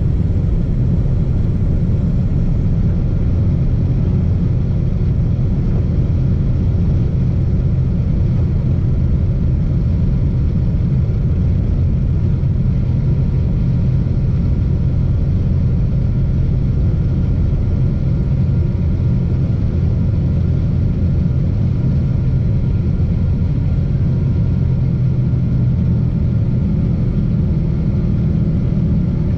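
Boeing 777-200 airliner heard from inside the passenger cabin: a loud, steady low rumble of engines and airframe, with a few faint steady whine tones above it.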